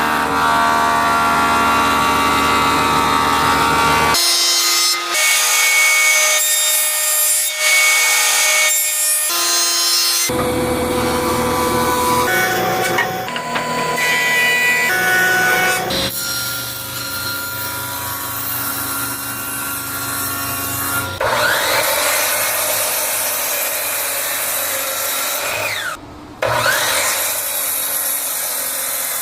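Woodworking power tools cutting swamp oak, in several short edited segments. Each has its own steady machine whine over loud cutting noise, and the segments change abruptly every few seconds.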